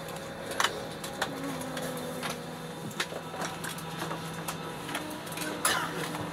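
Steady low hum inside an Airbus A319 cabin parked at the gate, with scattered sharp clicks and knocks over it.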